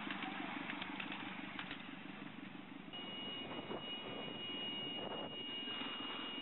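Ride-on miniature railway train running by with a low, rhythmic rumble. About three seconds in, a thin, steady high-pitched tone starts and holds.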